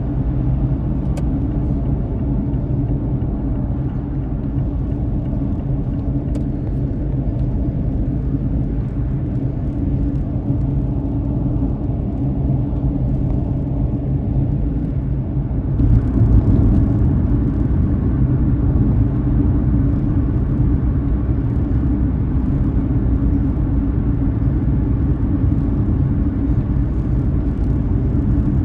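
Car driving, a steady low rumble of road and engine noise heard from inside the cabin, getting a little louder about sixteen seconds in.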